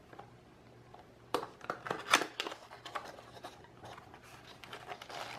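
Packaging of a headset box being handled: scattered rustles and light taps, starting about a second in, as its contents are picked through.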